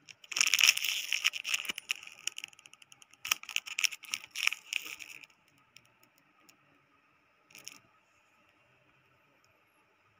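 Clear plastic wrapping on a badminton racket's grip crinkling as the racket is handled, in two long stretches of rustling and once briefly later on.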